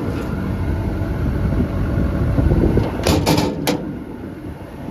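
Cummins diesel engine of an XCMG XE210CU excavator running steadily at idle, with a few sharp clicks and knocks about three seconds in.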